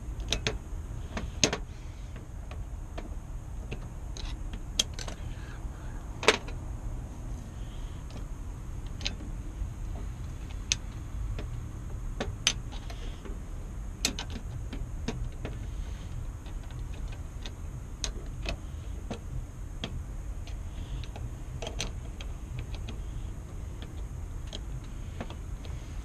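Small steel parts of an opened Sargent mortise lock body clicking and tapping against each other and against a screwdriver as it is worked on by hand. The clicks are irregular and sharp, over a steady low rumble.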